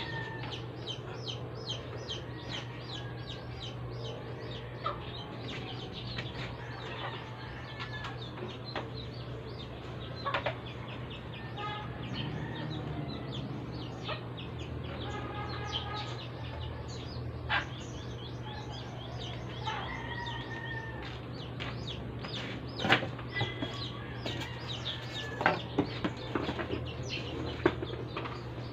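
Chickens clucking here and there, over a steady low hum, with scattered clicks and knocks of equipment being handled and a few sharper knocks near the end.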